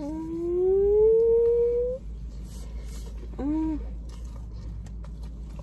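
A person humming through a mouthful of food: one long 'mmm' rising in pitch for about two seconds, then a short 'mm' that rises and falls about three and a half seconds in.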